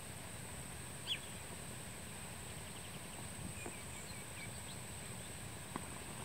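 Wading birds calling over steady outdoor hiss: one short, sharp call falling in pitch about a second in, then a faint run of quick short notes about three to four seconds in.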